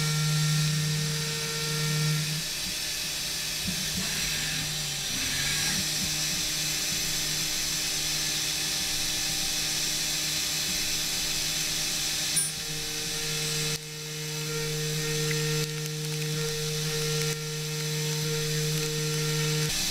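DMU 50 CNC machining centre's end mill cutting a pocket in 6061 aluminum: a steady tonal whine from the cut over a high hiss. The tone drops out and returns a few times as the tool moves between passes, around two seconds in, about five seconds in and between about twelve and fourteen seconds.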